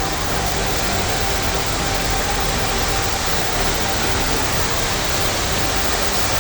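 Steady rushing of falling water from the Erin Ijesha waterfall, an even, unbroken noise.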